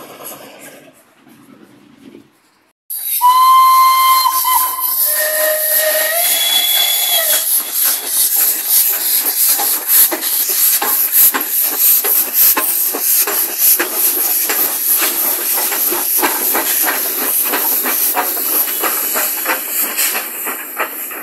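Steam locomotive whistle sounding twice about 3 seconds in, a higher note and then a longer, lower one, as the sound jumps suddenly loud. Then the locomotive passes close, with a loud steady steam hiss and rhythmic chuffing and wheel clatter.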